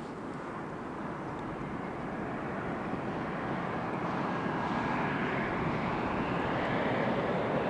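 Jet airliner engines: a steady rushing noise that grows louder as the aircraft approaches, with a faint high whine.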